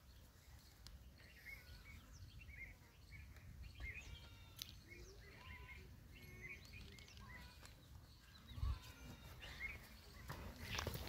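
Small birds chirping faintly in many short, quick calls over a low outdoor rumble, with a soft thump about two-thirds of the way through.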